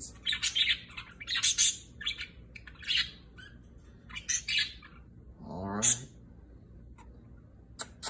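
Pet budgerigars chattering in short high chirps and squawks, busiest over the first five seconds. Just before six seconds comes a single brief rising sound, the loudest moment, after which the cage goes nearly quiet apart from a few faint ticks.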